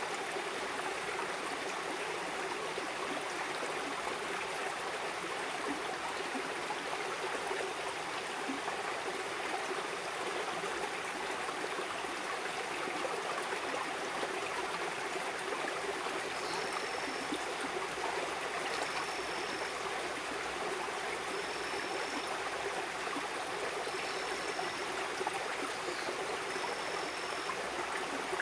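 A river flowing steadily over rocks. From about halfway through, a short high note repeats about every two and a half seconds above the water.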